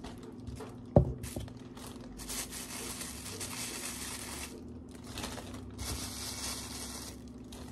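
Potatoes being peeled by hand: a run of short, raspy scraping strokes, with a plastic bag crinkling under the peelings. There is one sharp knock about a second in, and a faint steady hum underneath.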